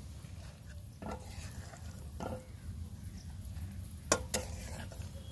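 Metal spatula scraping and knocking against a black iron kadai as thick mushroom curry is stirred and scooped out: a few separate scrapes, the loudest a pair of sharp knocks about four seconds in, over a steady low hum.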